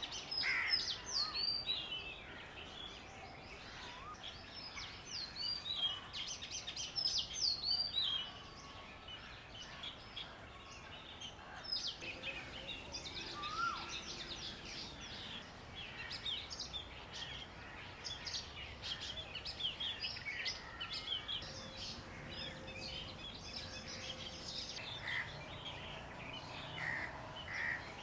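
Birds chirping and calling: repeated high, curving calls in the first several seconds, then a busier chatter of many short chirps.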